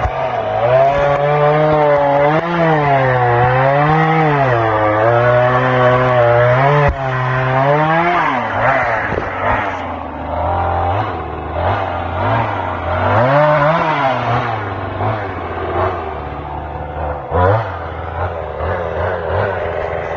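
Chainsaw engine running as wood is cut. Its pitch swings up and down over and over for about the first eight seconds, then settles lower and steadier, with a short rise again about two-thirds of the way through.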